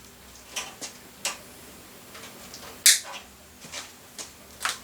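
Scattered light clicks and taps of cables and plastic parts being handled inside a computer case, about half a dozen in all, the sharpest about three seconds in.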